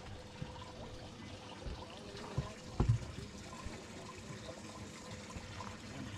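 Soft trickling of water under a faint steady hum, with two dull knocks about two and a half and three seconds in.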